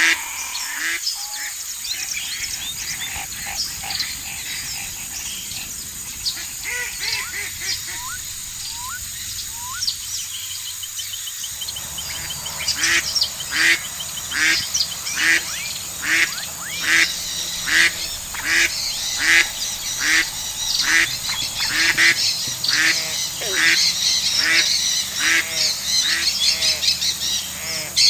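Ducks quacking. About twelve seconds in, it becomes a steady, regular run of quacks, roughly one and a half a second.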